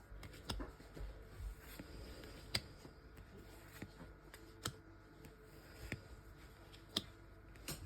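Trading cards being handled and flipped through, giving scattered light clicks and ticks about every half second to second.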